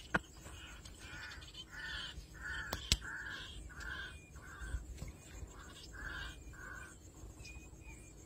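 A crow cawing, about nine short caws over some six seconds with a brief break in the middle. Two sharp clicks stand out, one at the very start and one about three seconds in.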